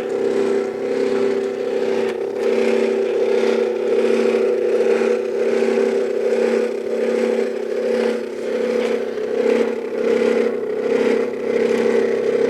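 Stepper motor turning an HO-scale model railway turntable: a steady electric whine made of several even tones.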